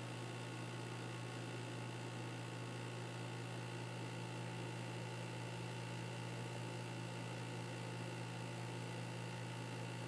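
Electric fan running with a steady low electrical hum from its motor, the abnormal noise the fan has developed. A few fainter steady tones sit above the hum.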